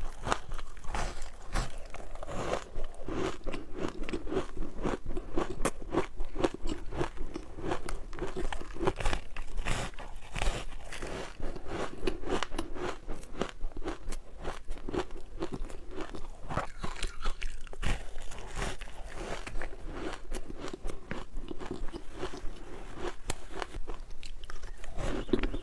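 Close-up eating sounds of freezer frost: repeated crunching bites and chewing of the packed ice crystals, with a dense run of small crackles throughout.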